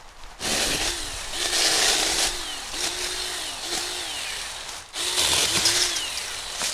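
Small battery-powered 6-inch mini chainsaw running and cutting wood, its electric motor whine dropping and recovering again and again as the chain bites into the cut. It cuts off briefly about five seconds in and starts again.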